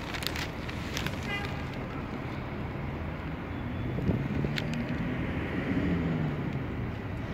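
Diesel-electric shunting locomotive's engine running, a steady low rumble whose pitch rises and falls about four to six seconds in. A short run of high chirps sounds about a second in.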